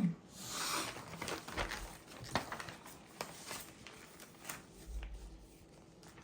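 Close handling noise: a soft rustle in the first second, then a scattering of light clicks and rustles, with a brief low thump or bump about five seconds in.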